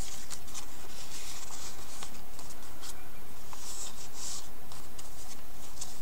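Paper rustling and sliding as a tag and paper pieces are handled and pulled from a pocket on a junk journal page, with a few light clicks and a louder rustle about four seconds in, over steady background noise.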